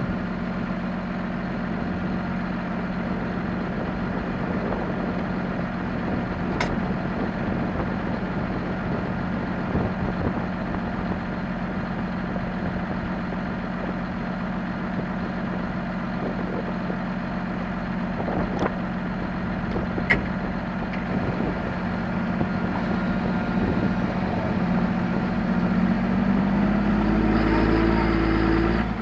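John Deere 7230R tractor's six-cylinder diesel engine running steadily at idle, with two sharp clicks. Near the end it grows louder with a deeper rumble as the engine picks up.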